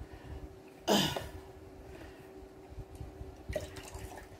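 A short wet, liquid-like sound about a second in, falling in pitch, and a fainter one near the end, over a steady low hum.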